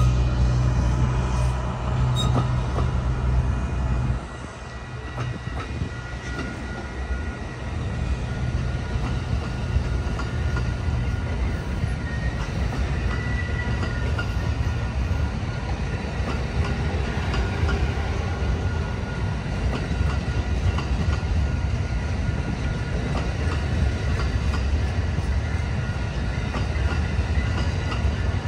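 A passenger train running by: a heavy low rumble that drops off abruptly about four seconds in, then the steady rumble and rattle of rail cars rolling past.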